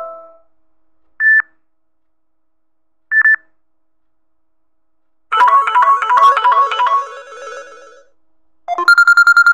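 Samsung Galaxy J5 (2016) ringtone previews playing one after another. A chiming melody dies away, then come two short high beeps about two seconds apart and a short melody of repeating notes. Near the end a fast pulsing ring starts.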